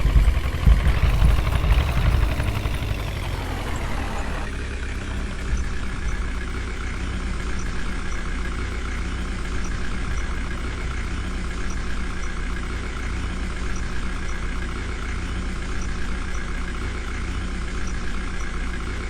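Heavy diesel engine running hard, then winding down about four seconds in and settling to a steady idle.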